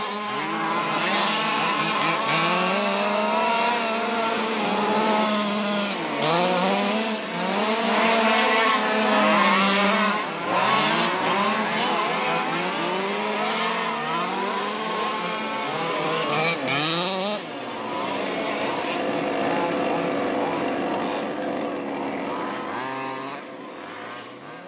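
Several fifth-scale petrol RC cars' small two-stroke engines racing together, their pitch repeatedly rising and falling as the cars accelerate and slow for the corners. The sound fades near the end.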